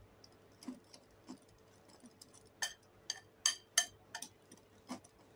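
Wire whisk clicking and tapping irregularly against a glass bowl while stirring dry wheat flour and semolina, with the loudest clicks near the middle.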